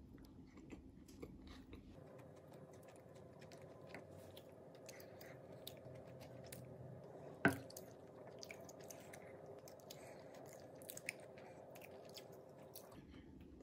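Faint close-up chewing and biting of toast, with many small moist clicks and crunches throughout and one louder sharp knock about halfway through.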